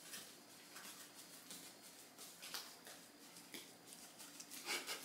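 Near-quiet room with a faint steady hum and scattered soft taps and rustles of a person moving about, with a slightly louder rustle near the end.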